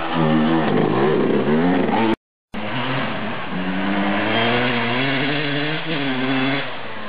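Dirt bike engine revving and passing close, its pitch dipping and rising. After a short break, a dirt bike engine runs on with smaller changes in pitch.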